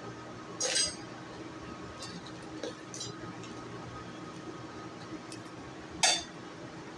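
Metal pieces clinking against each other twice, sharply, with a few light taps between, over a steady low hum.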